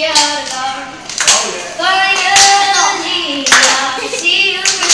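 A young girl singing into a handheld microphone, with sharp hand claps about once a second.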